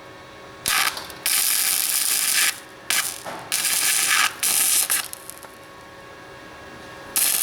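Flux-core arc welding from a Titanium Easy Flex 125 welder, crackling in several short stop-start bursts over the first five seconds, then another burst starting near the end.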